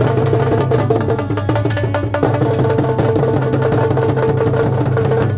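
Music with a fast, busy percussion beat over a steady low bass note.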